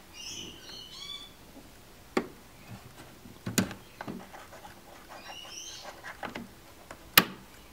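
Sharp clicks and knocks from a Nixie clock's power plug being pulled out and pushed back in, three in all, the loudest near the end. A small bird chirps in short bursts at the start and again past the middle.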